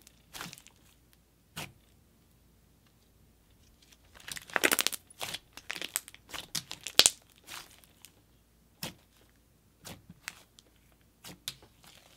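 Thick clay slime squeezed and pressed by hand, giving scattered crackly pops and snaps, with a dense run of pops about four and a half seconds in and a sharp snap about seven seconds in.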